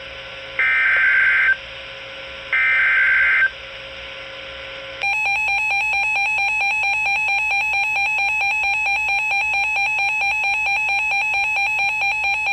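Emergency Alert System alert header: the last two of three short, buzzy digital data bursts, each about a second long and a second apart. About five seconds in, the steady, shrill EAS attention tone begins and holds, announcing the alert that follows.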